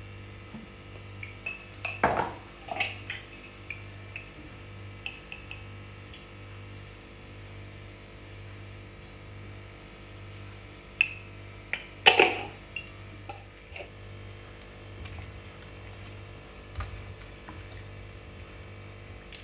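A metal spoon and fingers knocking against a stainless steel mixing bowl while raw fish pieces are rubbed with spices by hand: scattered clinks, loudest about two seconds and twelve seconds in, over a low steady hum.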